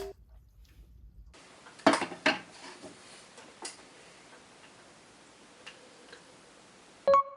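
Faint clicks and clinks of utensils against a metal mess tin, ending near the end with one sharp clink that rings on briefly.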